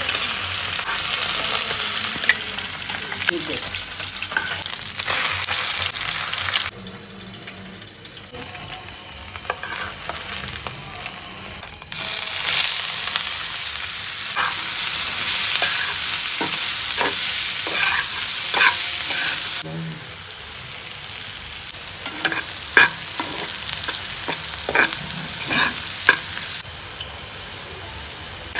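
Hot oil sizzling in a pan. It eases off for a few seconds, then bursts into loud sizzling about twelve seconds in as sliced onions go into the oil. Near the end, sharp scrapes and knocks of a spatula stir the frying onions.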